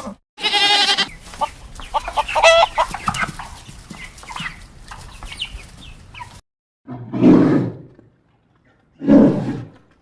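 A goat bleats briefly, then chickens cluck in many short calls. After a sudden cut come two short, low, rough animal calls about two seconds apart.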